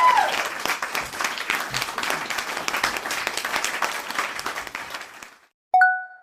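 Crowd applauding with a few cheering whoops at the start, fading out about five seconds in. Near the end a single short ding sounds and dies away quickly.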